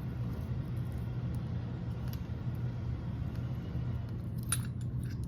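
Steady low background hum, with a brief faint clink of small metal parts about four and a half seconds in.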